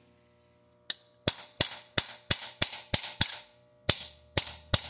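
Small 4-ounce hammer tapping a flat-faced steel punch, driving a roll pin into an AR-15 lower receiver to secure the selector lever. A run of sharp taps, about three or four a second, starts about a second in, with a short pause past the middle.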